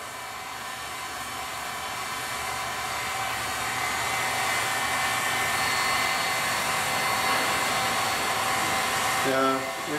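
Handheld electric heat gun running steadily: the rush of hot air from its nozzle over a faint fan-motor whine, growing gradually louder. It is heating a motor coupler so that it expands enough to slide onto the motor shaft.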